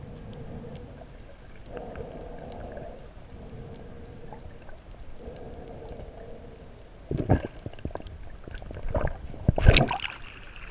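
Muffled underwater sound picked up by an action camera held down at a shipwreck, with a faint hum coming and going. From about seven seconds in, loud bursts of splashing and rushing water build as the camera comes up and breaks the surface near the end.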